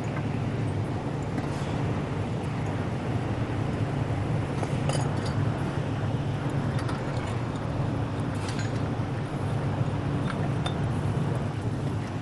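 A motor running steadily with a low hum, with occasional light metallic clinks on top.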